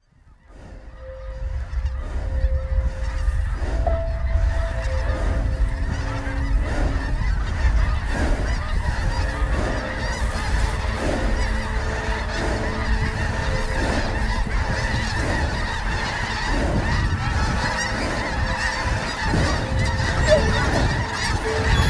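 A large flock of snow geese calling all at once, a dense steady mass of honks that fades in over the first couple of seconds, with a low rumble underneath.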